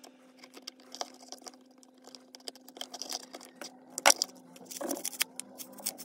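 Small clicks and rustles of a chainsaw's plastic recoil-starter housing and starter rope being handled, with a sharp click about four seconds in, over a faint steady hum.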